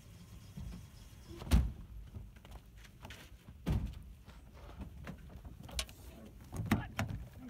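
Several separate dull thumps and knocks, the loudest about one and a half seconds in, another about two seconds later, and two close together near the end.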